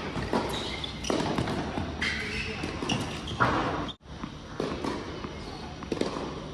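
Tennis ball bouncing on an indoor hard court, with scattered ball impacts and footsteps on the court. The sound drops out briefly about four seconds in.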